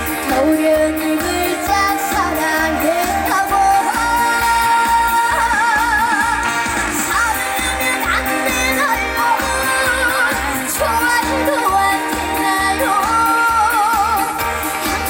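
Trot song played live over a backing track: a melody line with heavy vibrato over a steady, evenly pulsing beat.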